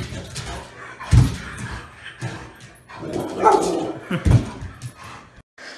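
Large dog barking in several loud, short barks about a second apart while it leaps up at a front door; the sound cuts off abruptly shortly before the end.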